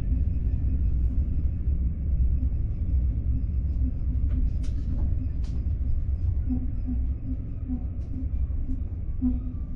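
Low rumble of a Mugunghwa-ho passenger train heard from inside the carriage as it slows along a station platform on arrival, with a few sharp clicks partway through. The rumble grows a little quieter near the end.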